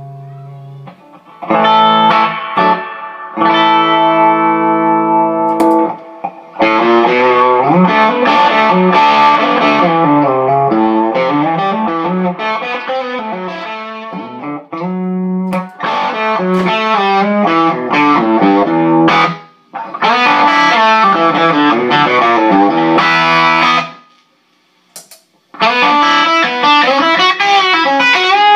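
Electric guitar with a Manlius 'Quiet Goat' hum-cancelling P90 pickup, played through an amp with light overdrive. A held chord fades out, then chord stabs lead into busy chord-and-single-note phrases, with a few short stops, the longest about four-fifths of the way through, before the playing picks up again.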